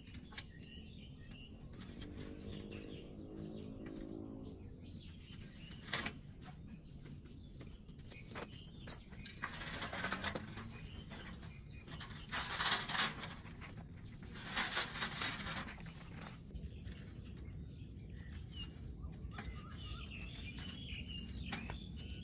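Three loud bursts of rustling, each about a second long, in the middle, with a sharp knock about six seconds in; birds chirp faintly in the background.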